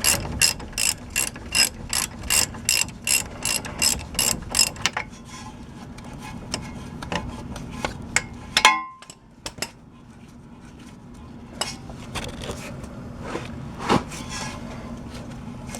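Ratchet wrench clicking at a steady pace, about three clicks a second, as a loose brake caliper bracket bolt is backed out; the clicking stops about five seconds in. A single loud ringing metal clank follows near the middle, then a few light metal knocks.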